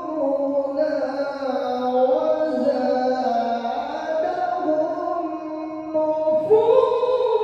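A male qari reciting the Qur'an in a melodic tilawah style, drawing out one long ornamented vowel that winds up and down in pitch and climbs higher about six and a half seconds in.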